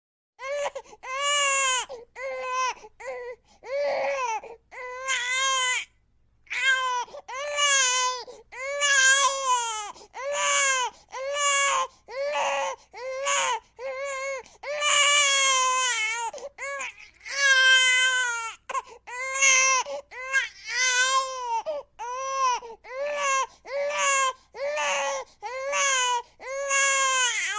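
Infant crying hard in a long run of short, high-pitched wails, about one a second, with quick breaths between and a brief pause about six seconds in.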